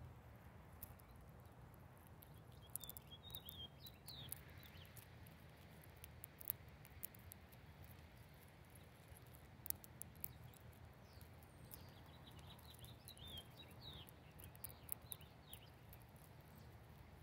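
Small birds at a feeder: faint scattered pecking ticks, with two short bursts of high twittering chirps, about three seconds in and again around thirteen seconds in, over a low steady hum.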